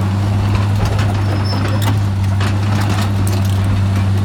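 Hitachi ZX200LC hydraulic excavator's diesel engine running steadily, a constant low hum with scattered faint clicks.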